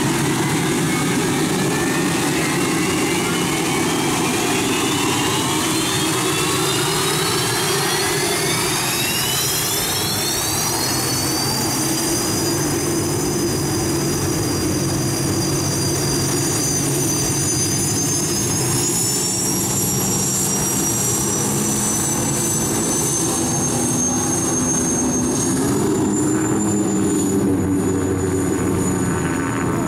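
Unlimited hydroplane's Lycoming T55 gas-turbine engine spooling up, its whine rising steadily for about twelve seconds, then holding a high steady whine over a low rumble as the boat runs, with a small further rise about two-thirds of the way through.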